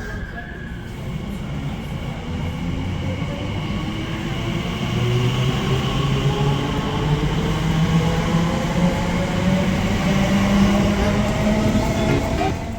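Electric train accelerating: its traction motor whine rises steadily in pitch over the rumble of the wheels, with a lower hum stepping up in pitch as it gathers speed.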